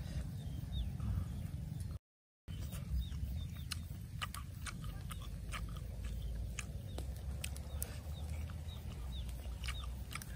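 Close-up chewing and lip-smacking while eating roasted crocodile meat dipped in sauce, with many short crackly clicks through the middle and end. The sound cuts out briefly about two seconds in.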